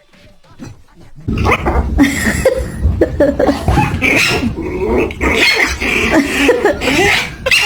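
Animal calls, many short cries bending up and down in pitch, starting about a second in over a loud noisy background.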